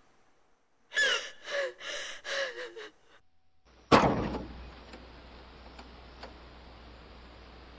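A woman sobbing and wailing for about two seconds. About four seconds in, a car door slams shut with a single loud thud, followed by a steady low hum inside the car.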